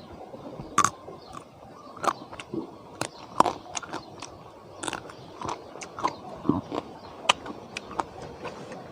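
A person biting and chewing crunchy food close to the microphone, with irregular sharp crunches and clicks about once or twice a second.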